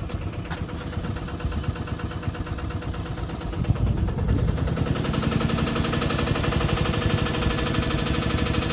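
Sailing yacht's engine running steadily under way, growing louder about four seconds in as it is throttled up.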